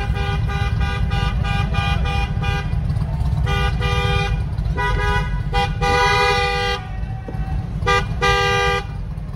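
Vehicle horns honking: a run of rapid short toots for the first few seconds, then several longer honks, over the steady low rumble of a vehicle driving slowly.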